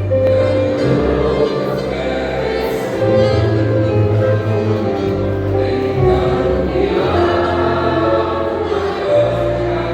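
Vocal group singing a gospel song in harmony, with held notes over a steady bass accompaniment.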